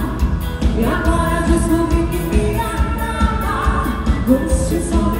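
Live band playing dance music: a woman singing into a microphone over guitar and a drum kit keeping a steady beat.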